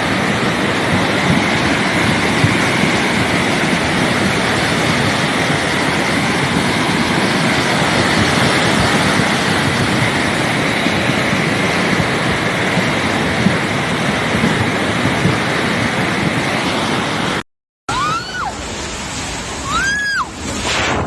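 Loud, steady rush of fast-flowing floodwater. It cuts off abruptly near the end, and a different recording follows with a few short high-pitched sounds that rise and fall.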